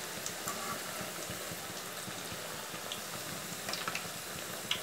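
Thattu vadai, flat rice-flour crackers, deep-frying in hot oil in an aluminium kadai: a steady bubbling sizzle with fine crackles. The crackers have puffed up and float at the top as they cook. A few light clicks come about two thirds of the way in and near the end.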